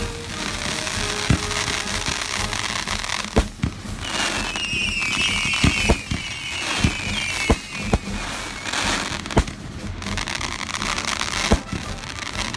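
Aerial fireworks show: sharp shell bursts go off about every second over steady crackling. Several high whistles glide downward about four to six seconds in.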